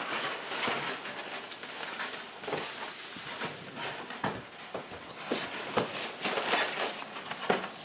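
Rustling and handling sounds of food and takeaway packaging at a meal table, with a few sharp clicks and taps spaced a second or two apart.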